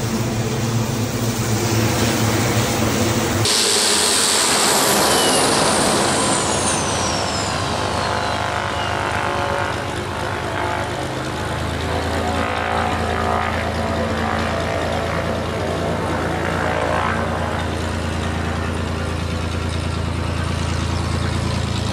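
Garrett TPE331-6 turboprop engine running on the ground, with a high turbine whine that falls in pitch about four to nine seconds in, then a steady low drone with an even hum for the rest.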